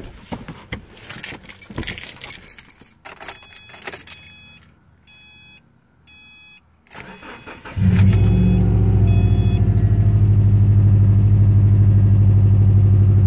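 Keys jangling and clicking, then a car's warning chime beeps a few times. About eight seconds in, the 2008 Subaru WRX's turbocharged flat-four engine cranks briefly, catches and runs at a steady idle.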